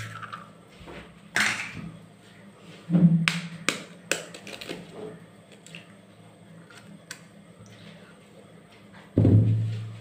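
Eggs being cracked open over a stainless steel bowl. There are a handful of sharp taps and clicks of shell, and a low knock on the bowl about three seconds in. A louder dull thump comes near the end.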